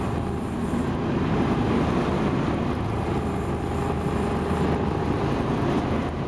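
Fishing boat's engine running steadily with a low hum, under a continuous rushing hiss of wind and water.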